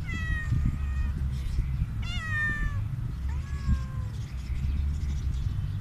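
Tortoiseshell stray cat meowing loudly for food: three meows, each under a second long and falling in pitch at the end, the third fainter. A steady low rumble runs underneath.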